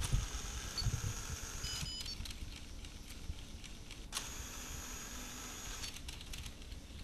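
Handling noise from a hand-held video camera being moved, a low rumble with a faint steady high whine, a click just after four seconds in, and a short two-note electronic beep about two seconds in.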